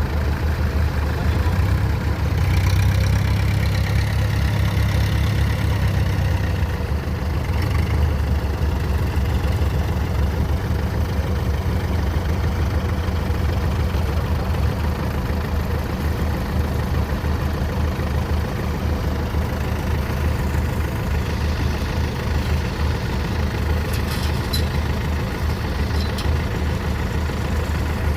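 Diesel engine of heavy farm machinery running steadily under load, somewhat louder for a few seconds near the start.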